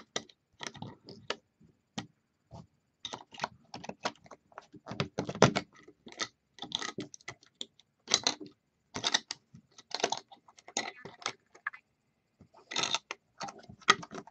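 Irregular clicks, taps and scrapes of a small screwdriver prying at the parts of a dismantled 2.5-inch hard drive.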